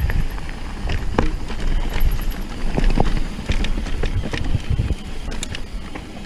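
Mountain bike descending a dirt singletrack: tyres rolling over the trail and the bike rattling, with frequent sharp knocks and clicks, over a steady low rumble of wind on the microphone.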